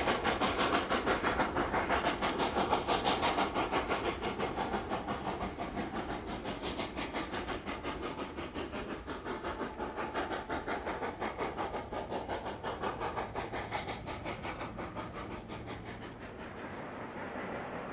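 Narrow-gauge steam train rolling away along the track, its rhythmic clatter steadily fading as it recedes.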